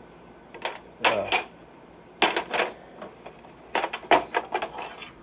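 Metal hand tools clinking and clattering as they are picked up and set down on a hard surface, in several short bursts.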